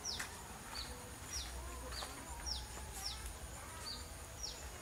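A bird calling over and over with short, high chirps that fall in pitch, about two a second. Longer downward sweeps alternate with shorter, flatter notes. A faint steady high whine runs underneath.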